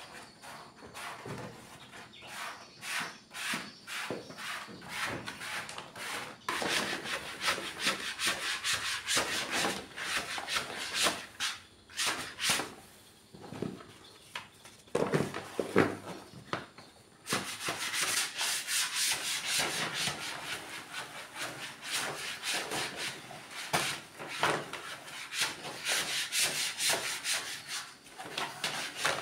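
Plastic squeegee rubbing over self-adhesive wood-grain vinyl sheet as it is smoothed onto a cabinet, in runs of quick scraping strokes with a quieter spell midway.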